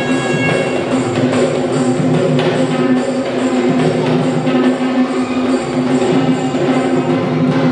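Traditional Sri Lankan drumming: two-headed barrel drums played in a fast, even rhythm over a steady held tone.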